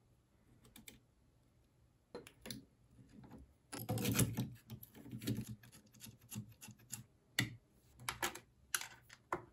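Irregular clicks, knocks and scrapes of plastic and metal parts being handled as the print head is taken off the 3D printer's carriage, the laser module is fitted in its place and its cable connector is plugged in. The handling starts about two seconds in and is busiest about four seconds in.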